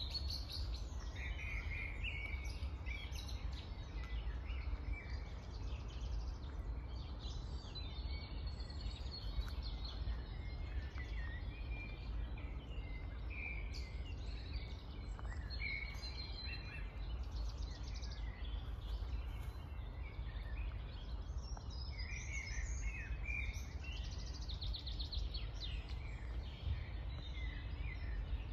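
Several songbirds singing and chirping, with quick trills now and then, over a steady low rumble.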